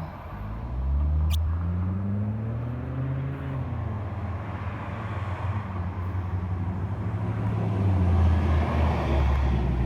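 A road vehicle's engine running nearby, a low rumble whose pitch rises over the first few seconds and then eases back down.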